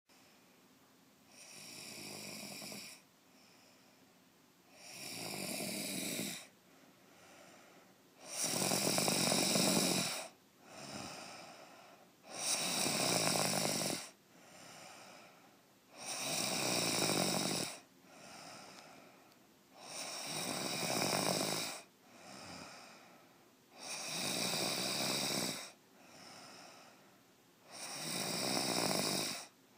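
A sleeping woman snoring loudly, a long rasping snore roughly every four seconds with a softer breath between each, eight in a row.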